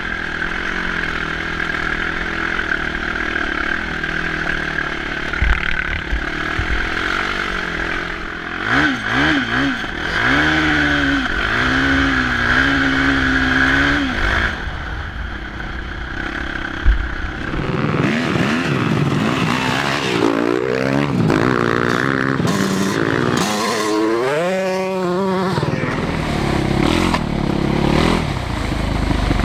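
Quad (ATV) engine running under way off-road, its pitch rising and falling repeatedly with the throttle, over a steady rush of noise and the odd knock and rattle.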